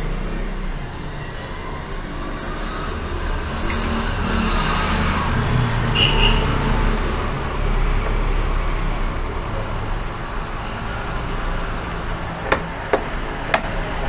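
Steady road traffic noise with a low rumble, a brief high tone about six seconds in, and a few sharp clicks near the end.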